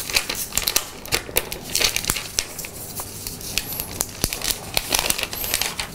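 Thin plastic protective film crinkling and rustling as it is peeled off a new smartphone, in a run of irregular sharp crackles.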